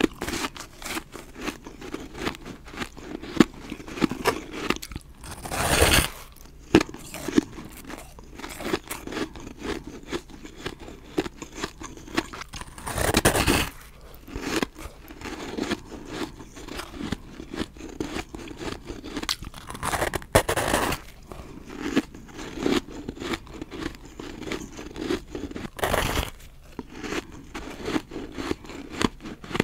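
Close-up crunching of dry, powdery refrozen ice snowballs being chewed in the mouth, a steady run of crackling crunches. Four times, spaced several seconds apart, a fresh bite into a snowball gives a longer, louder crunch.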